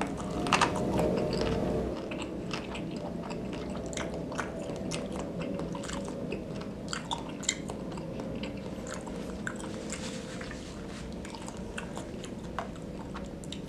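A person chewing a bite of beef tendon meatball close to the microphone, with many small, irregular wet mouth clicks, a little louder in the first couple of seconds.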